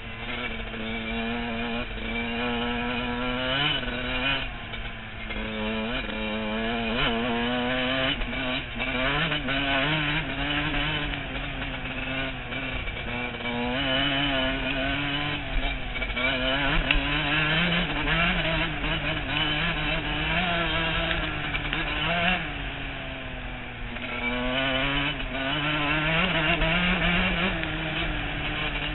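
Dirt bike engine being ridden, heard from a helmet-mounted camera. Its pitch climbs and drops again and again as the throttle opens and closes.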